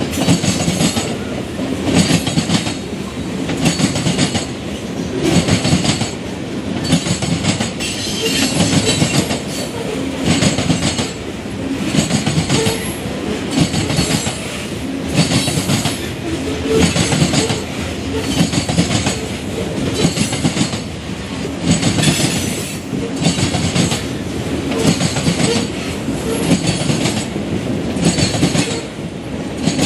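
Freight train cars rolling past, their wheels clacking over the rail joints in a steady, evenly repeating rhythm.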